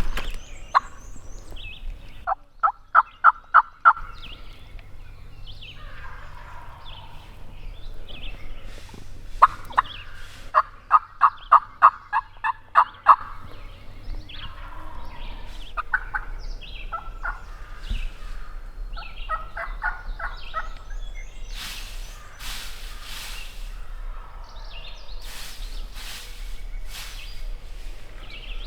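Turkey yelping on a box call: two loud series of evenly spaced notes, about six and then about ten. Fainter turkey calls follow in the middle, and rustling comes near the end.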